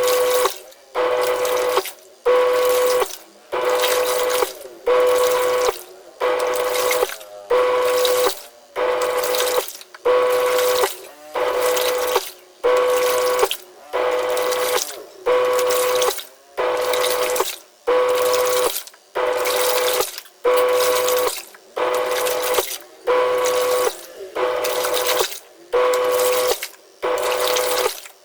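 Twin-tub washing machine's wash tub running in short pulses, about one a second: a motor whine with sloshing water, each pulse starting and stopping sharply.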